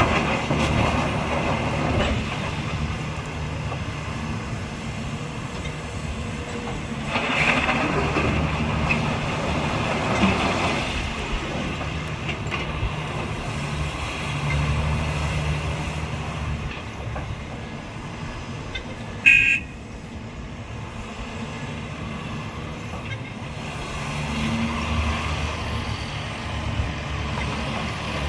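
Heavy construction machinery's diesel engine running, swelling and easing with the work. A single short horn toot sounds a little past halfway.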